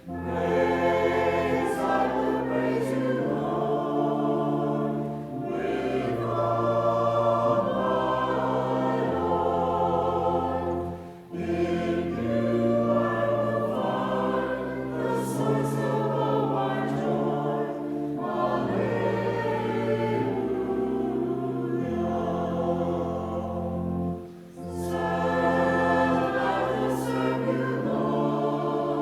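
A congregation singing a hymn together with instrumental accompaniment of held bass notes, with short pauses between phrases.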